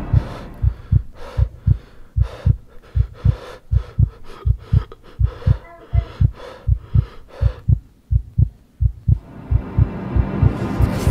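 Heartbeat sound effect: quick, even low thumps, about three a second, fading out near the end as music swells in.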